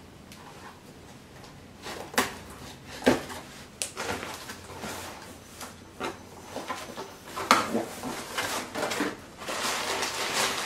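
A cardboard shipping box being cut open with a knife: sharp knocks and scrapes of the blade and hands on the taped cardboard. In the last few seconds the flaps are pulled back and the plastic wrapping inside rustles.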